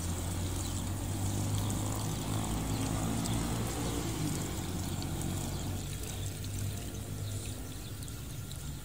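Water poured from a large aluminium bowl into a pot of rice, a steady splash that fades out about six seconds in, over a low steady hum.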